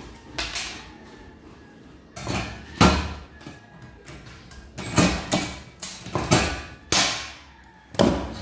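Hand riveter setting a blind rivet through galvanized steel furring channels: a series of sharp metallic clicks and snaps from the squeezed handles and the pulled mandrel, the sharpest about three seconds in.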